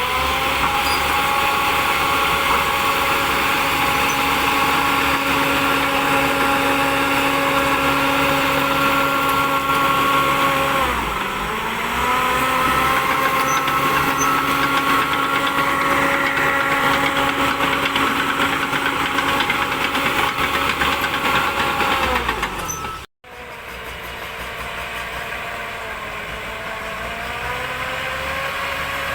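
Shantui DH10B2 bulldozer's diesel engine running at high revs, dropping in pitch about a third of the way through and climbing back again. After an abrupt cut near the end, it runs quieter and slowly revs up.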